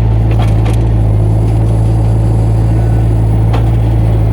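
Mini excavator engine running loud and steady at a constant speed, a low drone that holds one pitch, with a few faint clicks over it.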